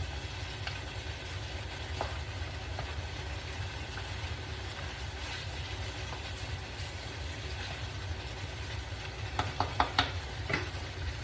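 Chicken stir-fry with broth cooking in a pan on the stove over a steady low hum. Several sharp clinks of a utensil against the pan come near the end.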